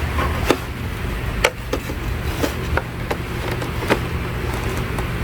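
Sharp plastic clicks and snaps, about seven spread unevenly, as a trim tool pries the covers off a factory taillamp, over a steady low hum.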